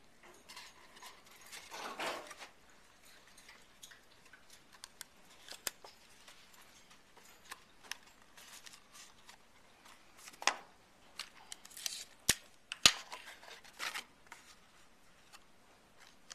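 Stiff cardstock being handled and folded by hand: scattered short rustles with a few sharp taps and clicks, the sharpest clustered late on.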